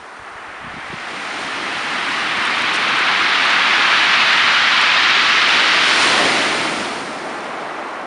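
A wave breaking and washing up a shingle beach: a hiss of surf over pebbles that swells for a few seconds, then eases off as the water draws back.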